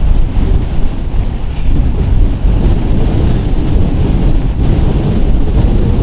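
Strong gusting wind buffeting the microphone: a loud, uneven low rumble that swells and eases.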